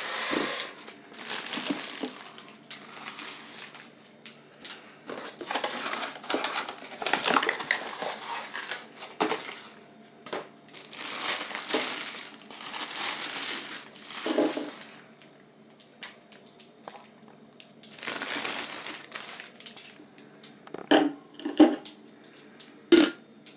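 Plastic packaging crinkling and rustling in bursts of a few seconds as a new coffee machine is unwrapped and handled, with a few sharp knocks near the end.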